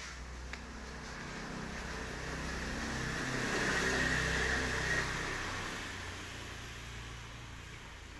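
A motor vehicle passing by: its engine and road noise build to a peak about four seconds in, then fade away.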